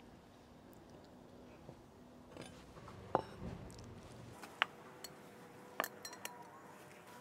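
White ceramic plates being set down on a wooden board: a dull knock about three seconds in, then several light clinks of china.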